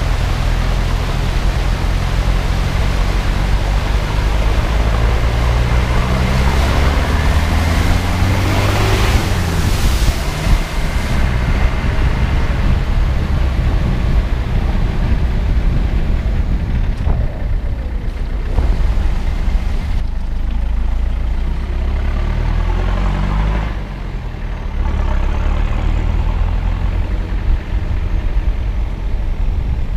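A 4x4's engine pulls through deep flood water while water rushes and sprays around the body. After about ten seconds the rushing fades, and the engine is heard revving up twice as the vehicle accelerates.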